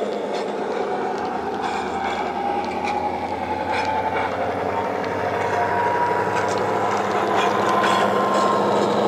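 Model Class 59 diesel locomotive's DCC sound decoder playing a recorded EMD two-stroke diesel engine through the model's small onboard speaker as the loco runs. A whine rises slowly in pitch over the second half, and the sound grows louder as the model nears. Light clicks come from the wheels on the track.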